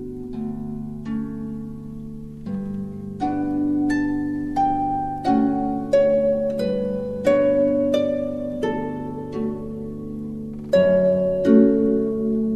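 Instrumental background music: a slow melody of plucked string notes that ring and fade, over a held low tone.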